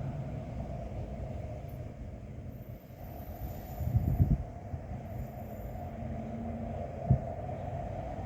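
Wind blowing and buffeting the microphone in a low, uneven rumble, with a stronger gust about four seconds in and a brief thump near the seven-second mark.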